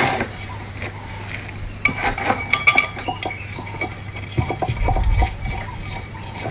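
Metal tools and gearbox parts clinking and knocking against each other during hand assembly of a center pivot irrigation gearbox, with a cluster of sharp ringing clinks a couple of seconds in and duller knocks later.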